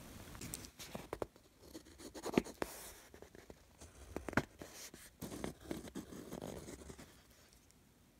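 Ballpoint pen scratching on paper in short strokes, underlining text in a textbook, with light taps and clicks between strokes; it goes quiet near the end.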